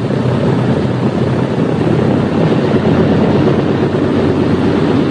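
B-17 Flying Fortress's four Wright Cyclone radial engines running steadily at low power as the bomber rolls out along the runway after landing, in a muffled old film soundtrack.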